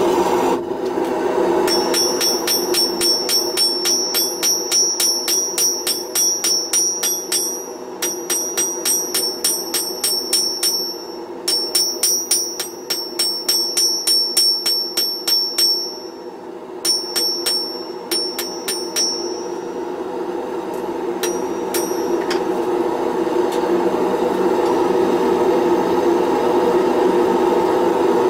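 A hand hammer is forging hot 1 cm round steel bar into blacksmith tongs on an unanchored anvil, in several fast runs of about three to four blows a second, each blow ringing high off the anvil. The blows thin out and stop about 22 seconds in. Under them the forge burner runs steadily and grows louder near the end.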